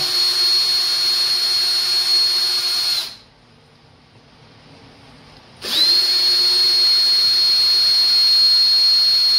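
Ryobi cordless drill/driver backing out screws: the motor runs with a steady high whine, stops about three seconds in, then starts again a couple of seconds later, rising quickly to speed and running steadily.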